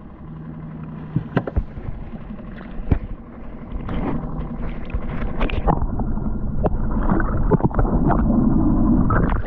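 Seawater sloshing and gurgling around a microphone held just under the surface, muffled, with scattered knocks and splashes and the skiff's motor humming low underneath. The water noise grows louder about halfway through.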